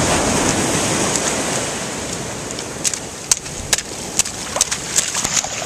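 Steady surf and wind noise at the water's edge. From about halfway in, a run of sharp, irregular clicks and snaps.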